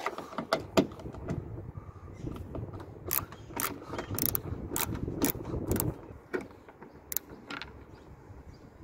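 Hand screwdriver backing Phillips screws out of a plastic lift gate trim panel, with a run of sharp clicks about two a second.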